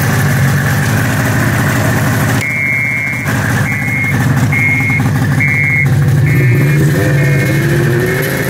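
Snowmobile two-stroke engine running steadily at idle, loud. From about two and a half seconds in, a short high beep repeats roughly once a second. Near the end a wavering higher tone rises and falls over the engine note.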